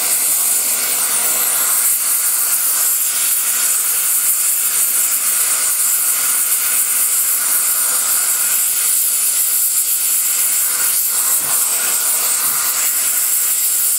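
Spray-welding torch flame hissing steadily while it preheats a spot on a cast-iron cylinder head, bringing the metal to a red, wet-looking glow before the powder is sprayed on.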